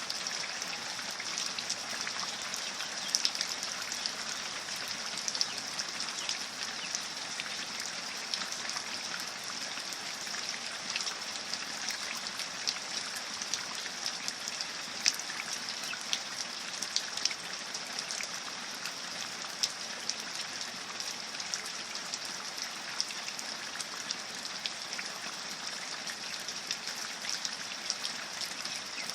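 Steady rain falling, with many individual drops ticking sharply over an even hiss of water.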